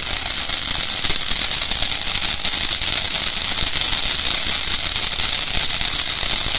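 Ground-level fireworks going off in a dense, rapid crackle that holds steady, with no separate big bangs standing out.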